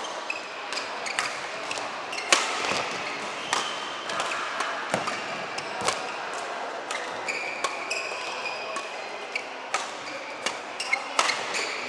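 Badminton rally: sharp racket strikes on the shuttlecock roughly every second, the loudest about two seconds in, with shoes squeaking briefly on the court floor, in a large sports hall.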